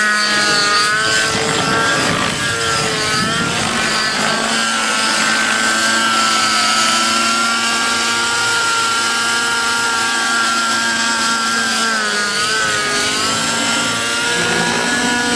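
Radio-controlled model helicopter running at high revs in flight: a steady, high-pitched whine that wavers briefly in pitch just after the start and again about twelve seconds in.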